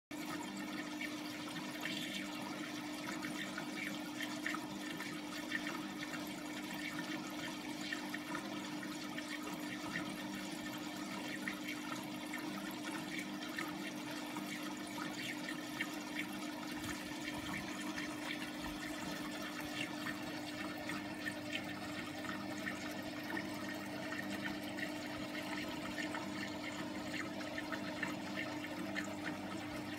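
Aquarium filter running: water trickling and bubbling with small scattered pops over a steady motor hum.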